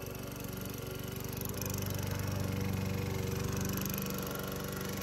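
Lawn mower engine running steadily, a little louder from about two seconds in. The mower is being test-run with a newly fitted blade after a dent in the front of the deck, which the blade had been hitting, was knocked out.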